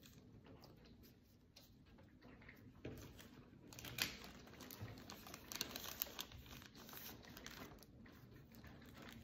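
Faint handling noise of trading cards being shuffled and slid against each other, with crinkling of a foil card-pack wrapper. Quiet at first, it picks up about four seconds in with a sharp click, followed by scattered small taps and rustles.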